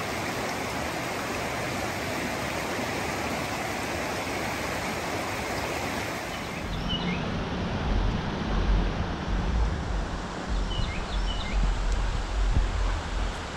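Rushing water of a mountain creek, a steady hiss. About seven seconds in the sound changes, with a low rumble that comes and goes and a few short high chirps over the water.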